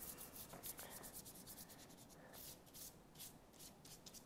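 Faint, quick repeated strokes of a thick wet paintbrush brushed across paper, wetting the page with water before the paint goes on.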